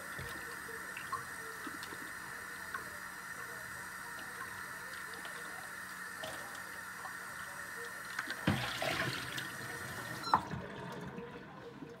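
Kitchen tap running steadily into a sink, with a few light clicks and a busier, splashier stretch near the end. A sharp knock comes about ten seconds in and the water cuts off right after it.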